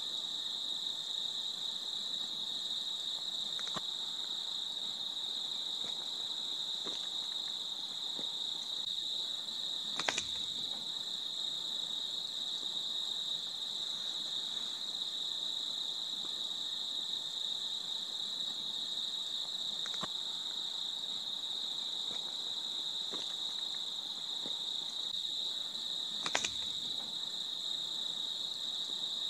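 Crickets trilling steadily in a continuous high-pitched chorus. Two brief clicks stand out, about ten seconds in and again near the end.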